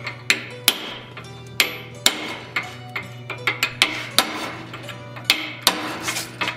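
Hammer striking a chisel held against hot forged steel in a vise: a quick, irregular run of sharp metal strikes, about two or three a second, each with a short ring.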